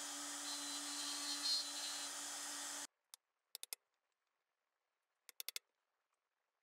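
Palm router running steadily as it cuts a shallow recess a few millimetres deep into a hardwood mallet head. It stops abruptly about three seconds in, and near silence follows with a few short clusters of faint clicks as a chisel pares the recess back to its marked line.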